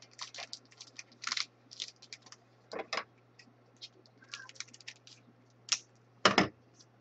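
Trading cards being handled and shuffled, with orange scissors snipping at a card pack: a scattered run of small dry clicks and rustles and one louder knock about six seconds in.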